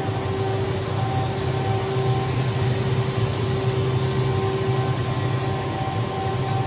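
A 2014 OKK HM-6300S CNC horizontal machining center idling under power, its pumps and auxiliary units giving a steady low hum with a few steady tones on top.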